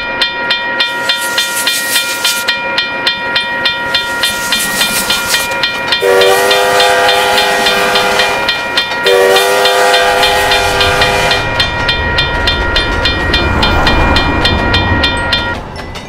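Railroad crossing bell ringing in a steady rapid rhythm, stopping just before the end. A passing passenger train sounds two long horn blasts, about six and nine seconds in, over the rumble of its wheels.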